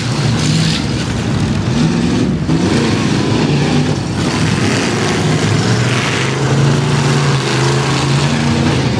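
Several V8 demolition derby cars' engines revving hard at full throttle, pitch rising and falling as they push and ram each other, with a few noisy bursts of cars colliding.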